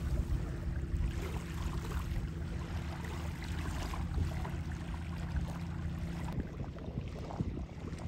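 Wind rumbling on the microphone at the water's edge, with a faint steady low hum underneath that drops away about six seconds in.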